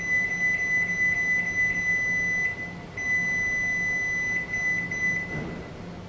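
Control-panel beeper of a Glen GL 672 built-in microwave giving a steady high beep as the Time/Weight key steps the cooking time up. The beep runs for about two and a half seconds, stops briefly, then runs again for about two seconds.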